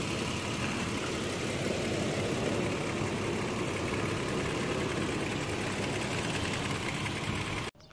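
Toyota Fortuner's V6 engine idling steadily under the open bonnet. It stops abruptly near the end.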